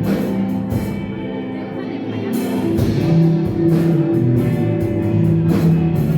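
A band playing loud music: sustained guitar notes over drums with cymbal hits.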